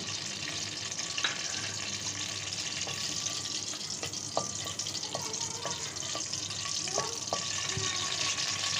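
Whole spices (bay leaves, cloves, black cardamom, cinnamon and peppercorns) sizzling in hot oil in a kadhai as they temper, with a steady hiss. A spatula stirs them, giving a few light scrapes and knocks against the pan.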